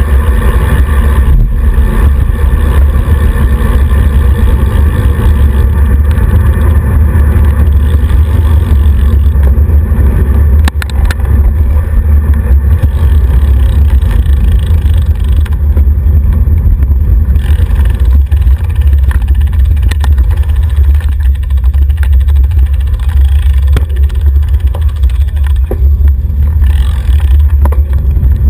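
Wind buffeting the microphone of a handlebar-mounted camera on a moving road bike: a loud, steady low rumble, with a few brief knocks from road vibration.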